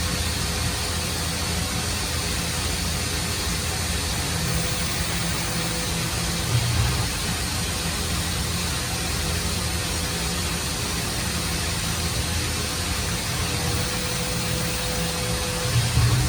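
CNC milling machine running a 1/4 inch carbide drill straight through a thin steel plate without pecking: a steady hum and hiss with a faint steady whine, swelling briefly about six seconds in and again near the end.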